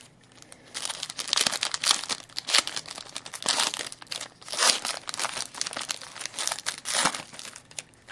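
A foil trading-card pack wrapper being torn open and crinkled: dense crackling that starts about a second in and goes on in surges for about six seconds.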